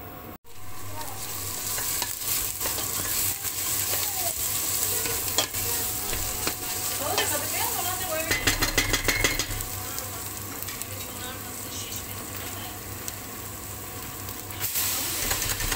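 Chopped onion and tomato sizzling in oil in a stainless steel pot while a wooden spoon stirs them, with a run of rapid scraping strokes against the pot about eight seconds in. Near the end shredded cabbage is tipped in from a colander and the sizzle gets louder.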